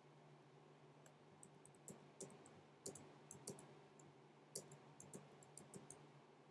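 Faint, irregular clicks of computer input during digital drawing, about a dozen starting about a second in and stopping near the end, over a low steady hum.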